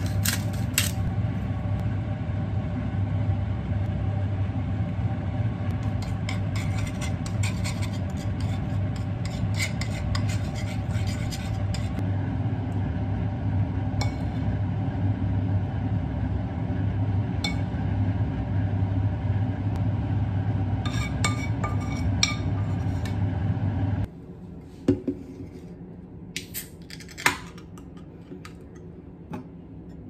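Metal spoon clinking and scraping against a stainless steel frying pan as caper sauce is spooned out, in clusters of light clicks over a steady low hum. About 24 seconds in the hum drops away, leaving a quieter room with a few sharp knocks.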